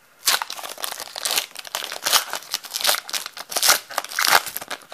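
Foil wrapper of a Donruss Optic baseball card pack being torn open and pulled apart in the hands: a run of loud, irregular crinkling and crackling rustles.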